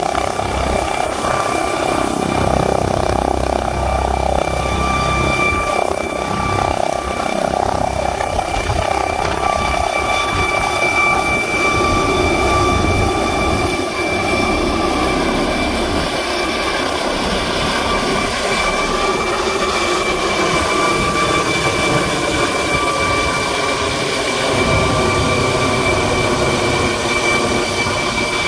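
McDonnell Douglas MD-900 Explorer helicopter's twin Pratt & Whitney Canada PW207E turboshafts and rotor at take-off power as it lifts off and climbs away: a steady high turbine whine over the rotor noise, with the deep rotor thump heaviest in the first few seconds.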